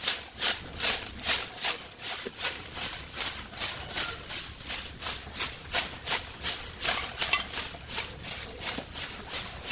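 A soft, long-bristled broom sweeping packed dirt and dry leaves in quick, regular strokes, about two to three swishes a second.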